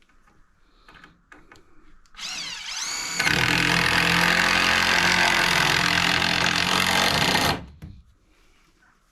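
Handheld power tool spinning up with a rising whine, then running loud under load for about four seconds before stopping.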